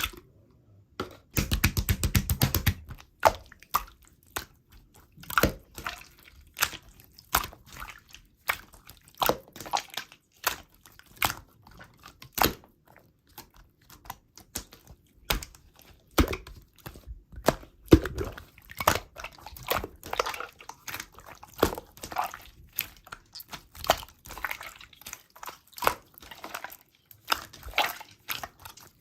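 Slime being squeezed and worked by hand, giving a quick run of sticky clicks about a second in, then irregular wet pops and clicks a few times a second.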